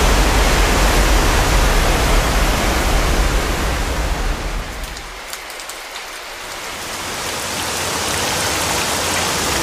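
Sound-design rush of spraying water: a dense, even hiss that thins out about halfway through and swells back up toward the end.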